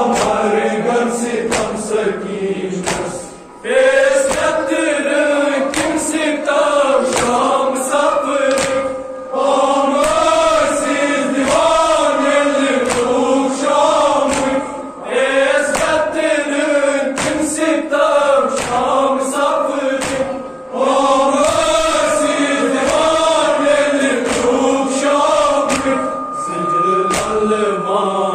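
A group of men chanting a Kashmiri noha, a Muharram lament, together in a wavering melody. The chant comes in phrases of about five to six seconds, with a brief pause for breath between them.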